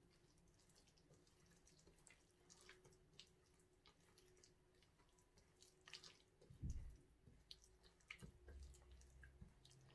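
Near silence, with faint small clicks and squishes of a hand mixing an oily mustard and spice paste in a stainless steel bowl, and one soft low thud a little after halfway.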